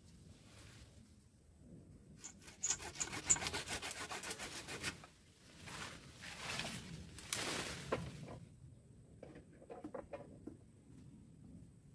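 Hand pruning saw cutting a tree branch: a run of quick rasping strokes a couple of seconds in, then two longer strokes, with leaves and twigs rustling.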